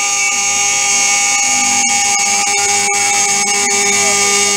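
Milling machine spindle running at high speed and cutting an aluminium rim: a steady, high-pitched whine of several tones over a hiss.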